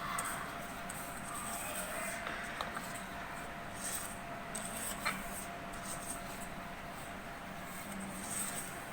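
Dry cake ingredients (flour, cocoa and sugar) being stirred in a mixing bowl: soft scraping with a few light taps of the utensil against the bowl, over a faint steady hum.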